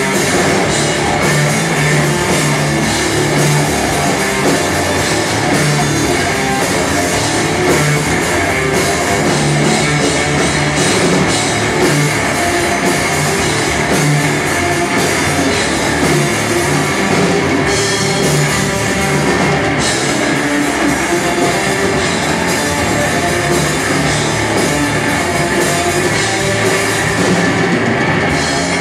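Rock band playing live, with a full drum kit and guitars, loud and continuous.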